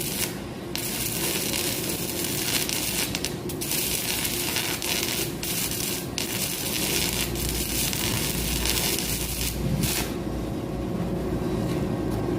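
Electric arc welding on pipe: the arc crackles and sizzles steadily over a steady machine hum, with a few brief breaks.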